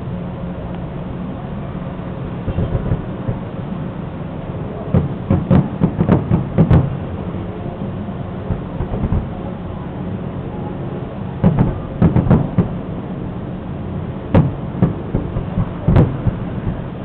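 Aerial fireworks shells bursting in a series of sharp bangs: a cluster about five to seven seconds in, another around twelve seconds, then single bangs near the end. A steady low hum runs underneath.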